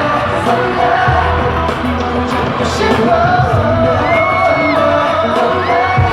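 Live pop concert music with singing over a large sound system, with crowd whoops and yells mixed in.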